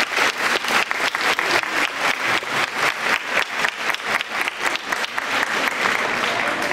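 Audience applauding, many hands clapping at a steady level, the claps becoming less distinct near the end.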